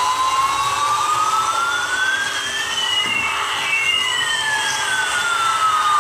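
Battery-operated toy airliner's electronic sound effect: a jet-engine whine rising steadily in pitch over a hiss, with a second tone falling in pitch that crosses it about halfway through.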